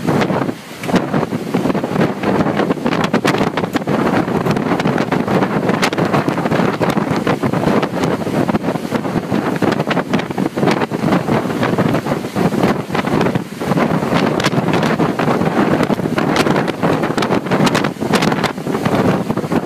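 Strong wind buffeting the microphone: a loud, steady rushing noise with frequent crackling pops.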